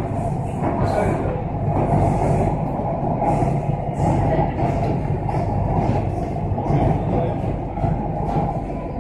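Steady rumble of a Chennai Metro train running on an elevated track, heard from inside the carriage: wheels on the rails and traction motors, with faint hissing at times.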